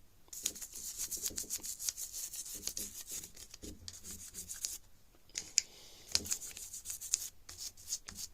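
Brisk scrubbing strokes over the grimy trigger mechanism of a Marlin 80 rifle, cleaning off built-up dirt with Hoppe's No. 9 solvent. The scrubbing stops briefly about four and five seconds in.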